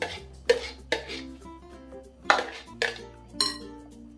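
A metal spoon knocking and scraping against a small chopper bowl and a glass mixing bowl as blended vegetables are emptied out, giving about six sharp clinks and knocks. Light background music plays underneath.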